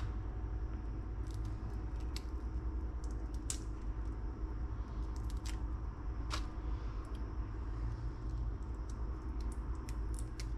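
Raw shrimp being peeled by hand, the shells giving scattered faint crackles and clicks over a steady low hum.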